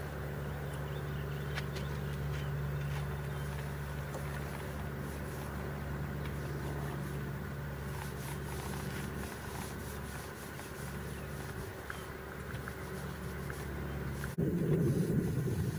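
A steady low mechanical hum with several held tones, like an engine or motor running. Near the end it cuts suddenly to a louder, rougher low rumble.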